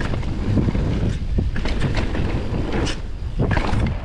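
Forbidden Dreadnought mullet mountain bike rolling fast down a dirt trail: a steady rumble of knobby tyres on dirt, broken by irregular knocks and rattles from the bike over bumps and roots.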